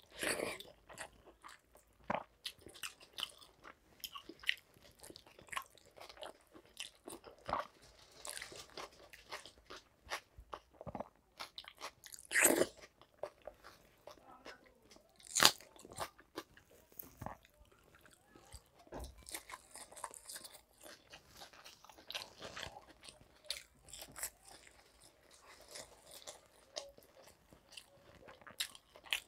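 A person chewing and biting food close to the microphone: panta bhat, rice soaked in water, eaten by hand with fried sides such as omelette, fried aubergine and aloo chop. There are frequent small crunches and wet chewing noises, with two louder bites about twelve and fifteen seconds in.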